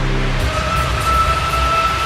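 Background music: held low notes that give way, about half a second in, to a rumbling low layer under a single steady high note.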